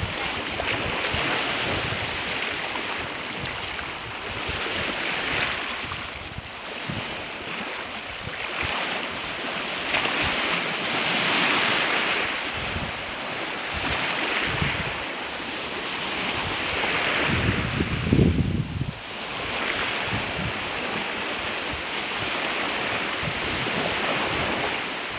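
Small waves washing over rocks and a pebble shore, swelling and fading every few seconds. Wind buffets the microphone, strongest in a gust about three quarters of the way through.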